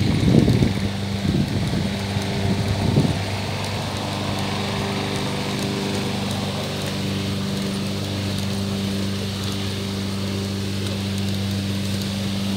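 A small motor running steadily at one fixed low pitch. There are a few brief rushes of low noise in the first three seconds.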